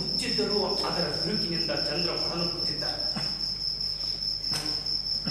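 A cricket trilling steadily, one unbroken high-pitched note, with a man's voice over it in the first three seconds.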